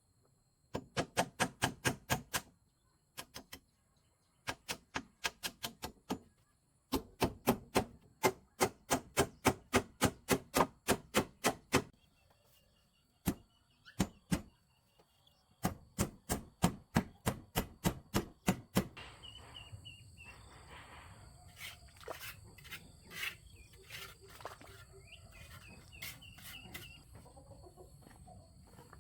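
Runs of sharp knocks, about four a second, in several bursts with pauses between: hammer blows on wood. In the last third the knocking stops and small birds chirp, with a chicken clucking.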